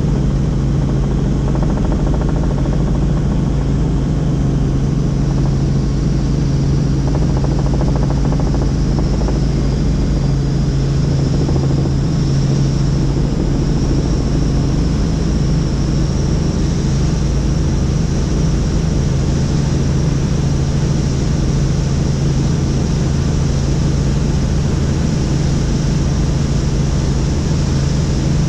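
Helicopter in flight: a steady, unbroken drone of rotor and engine with a thin high whine over it.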